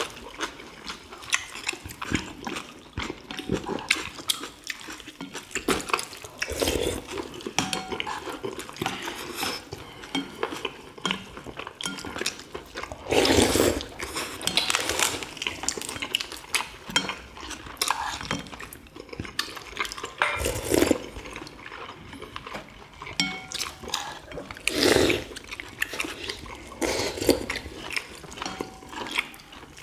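Eating sounds from several people at a table: chewing boiled chicken, sipping broth, and spoons and chopsticks clicking against ceramic bowls in many short clicks, with a few louder noises spread through.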